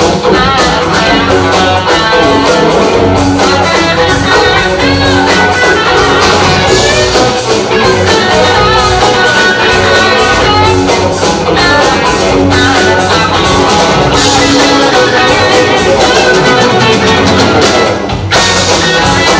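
Live blues-rock band playing an instrumental break between verses: an electric guitar plays lead with bent, wavering notes over bass and a drum kit keeping a steady beat.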